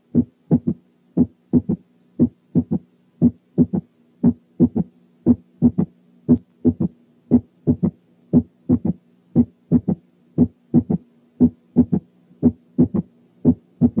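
Recorded heart sounds from a patient with a third heart sound (S3): a steady run of thumps at about one heartbeat a second, the first and second sounds followed in early diastole by a low-pitched, muffled third sound, over a faint steady hum.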